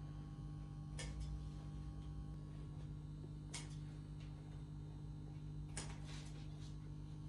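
A bamboo kite spar handled and worked, giving a few sharp clicks and scrapes in three short clusters over a steady low electrical hum.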